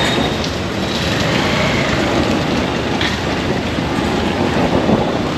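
Steady vehicle noise from a motor scooter on the move: the engine running and its tyres on the road, with no breaks.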